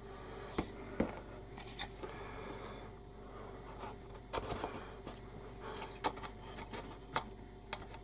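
Laser-cut MDF workstation parts being handled and fitted together by hand: scattered light clicks and knocks, with short stretches of scraping as a side panel is pressed onto its tabs and slots.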